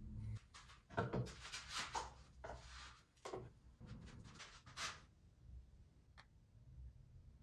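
Quiet workshop handling noises: a run of short rustles and scuffs over the first five seconds or so, then a single sharp click about six seconds in.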